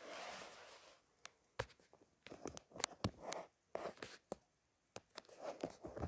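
Quiet, irregular rustling and clicking of handling noise, from a camera being moved about by hand.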